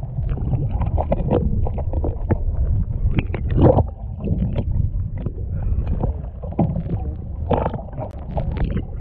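Muffled underwater sound picked up by a submerged camera: a steady low water rumble with scattered clicks and knocks, the strongest a little past a third of the way in and again near the end.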